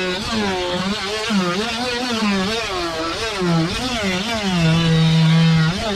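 Cordless oscillating multi-tool running loaded as its blade cuts into the boat's deck around the opened core section. The whine's pitch sags and recovers again and again as the blade bites, then holds steady and lower for about a second near the end.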